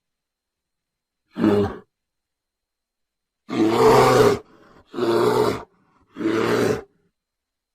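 Angry brown bear roaring and growling in four separate bursts: a short one about a second and a half in, then a longer roar, followed by two shorter ones. There is a faint breath between the second and third.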